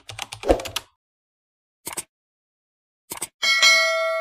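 Intro sound effects: a quick run of keyboard-typing clicks with a soft thud, then short mouse-like clicks, and near the end a bright bell ding that rings on and slowly fades, like a subscribe-and-notification-bell effect.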